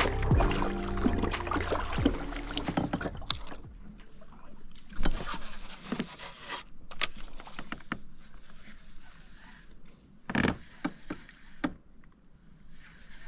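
Background music fading out over the first couple of seconds, then a kayak on the water: irregular knocks and small splashes, with louder ones about five and ten seconds in.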